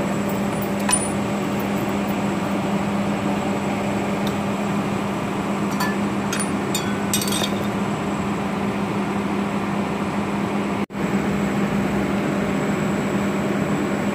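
Steel brake plates and friction discs of a backhoe loader's wet multi-disc axle brake clinking together a few times as they are handled and lifted out of the housing, over a steady machine hum.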